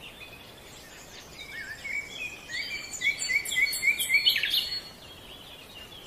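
Birdsong over a steady background hiss: several birds chirping, with a run of quick repeated rising notes at about four a second in the middle, loudest around four seconds in.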